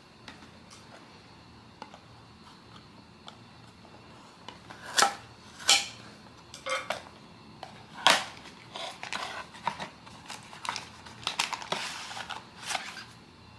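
Blind-box packaging and figure being handled: a few sharp clicks and knocks about five to eight seconds in, then a run of lighter clicking and rustling.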